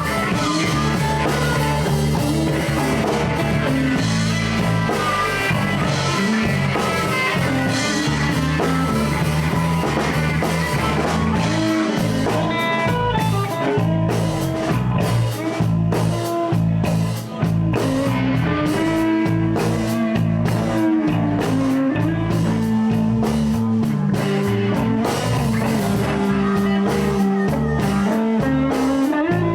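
Live electric blues band playing an instrumental break: electric guitar over bass and a drum kit.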